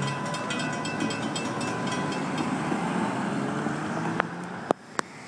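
Cars and trucks driving across the grade crossing after the train has cleared, giving a steady rush of traffic noise. A rapid ringing, like the crossing bell, fades out about two and a half seconds in, and three sharp clicks sound near the end.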